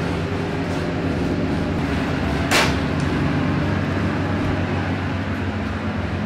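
Steady low rumble and hum of a passenger train carriage in motion, heard inside its toilet compartment, with a single sharp click about two and a half seconds in.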